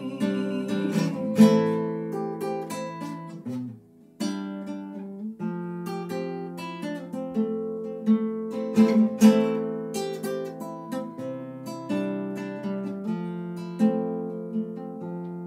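Acoustic guitar playing an instrumental passage of chords and picked notes, with a brief pause about four seconds in.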